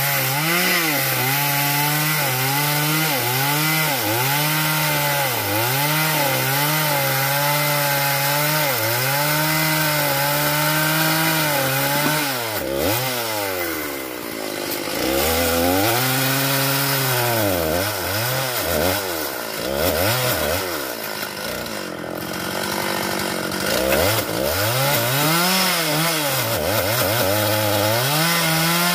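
STIHL MS381 two-stroke chainsaw cutting through a fallen sengon log, its engine pitch repeatedly dipping under load and recovering. About halfway through the revs fall right down for a couple of seconds, then the saw is throttled back up and cuts on.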